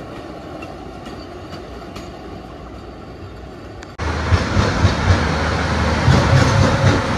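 Loaded wagons of a narrow-gauge sugarcane train rolling past on street track, a steady rumble with light wheel clicks. About four seconds in the sound cuts abruptly to a louder, deeper rumble.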